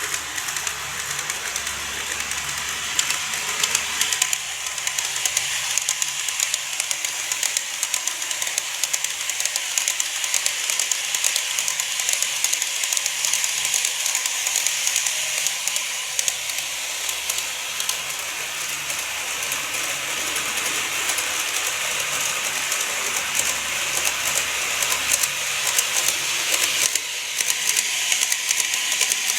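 N-gauge model train running on track: a steady hiss of wheels and motor peppered with many small clicks. The sound shifts and grows slightly louder near the end.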